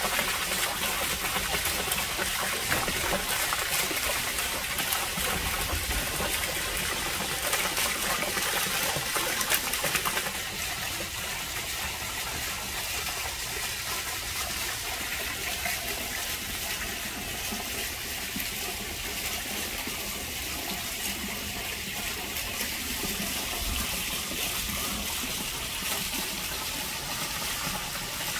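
Running water, a steady rushing trickle, a little softer from about ten seconds in.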